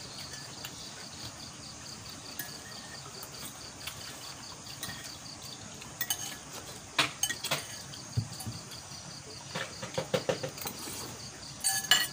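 Night insects chirping in a steady, evenly pulsing high trill, with a few sharp clinks of spoons against plates and dishes partway through and near the end.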